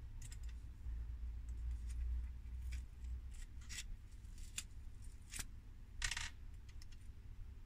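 Small handling sounds as a foam toy tractor and its foam wheels are turned and fitted by hand: scattered light clicks and short scrapes, with a longer scrape about six seconds in, over a low steady hum.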